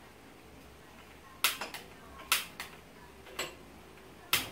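Handheld click lighter snapping repeatedly at a gas stove burner: a handful of sharp, irregularly spaced clicks starting about a second and a half in. These are repeated tries to light the burner, which is slow to catch.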